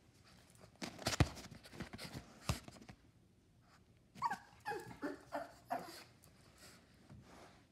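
A pug making several short, high-pitched whining cries in quick succession, about four seconds in. Before them comes a run of sharp knocks and scuffs.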